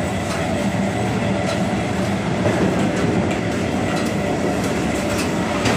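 A local train running on the rails, heard from inside the guard's cab: a loud, steady rumble and rattle with irregular clicks of the wheels over rail joints.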